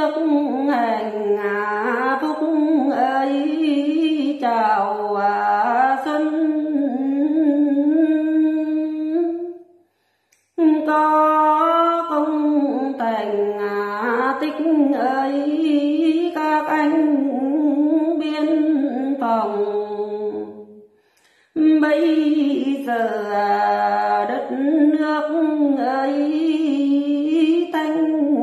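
An older woman singing unaccompanied in the Tày-Nùng folk style, in long drawn-out phrases whose held notes waver up and down. The phrases break briefly twice, about ten and twenty-one seconds in.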